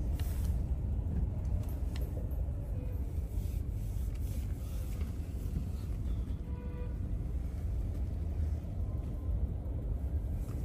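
Steady low rumble of a car moving in city traffic, engine and road noise heard from inside the car.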